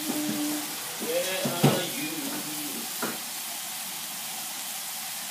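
Ground pork, chilies and sauce sizzling in a frying pan, a steady hiss of bubbling liquid. Two sharp knocks stand out, the louder about one and a half seconds in and another about three seconds in.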